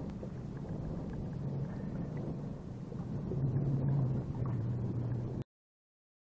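Boat's outboard motor running at a steady drone, with noise of wind and water. It cuts off suddenly about five seconds in.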